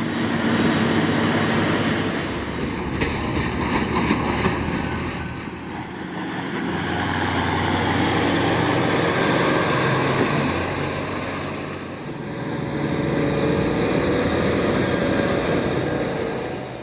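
Heavy diesel farm machinery of a maize silage harvest running steadily under load, a forage harvester with tractors, with a few sharp clicks about 3 to 4 seconds in and the drone easing slightly twice as the machines move past.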